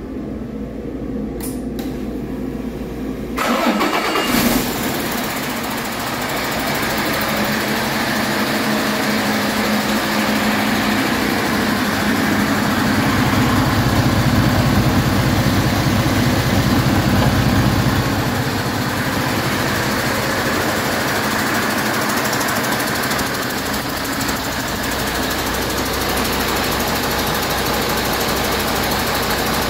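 International A26 12.4-litre inline-six diesel engine on a test stand, starting with a sudden burst about three seconds in, then running steadily through a test run.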